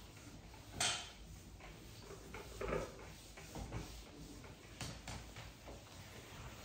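Whiteboard eraser wiping across a whiteboard in short, irregular strokes, the loudest about a second in.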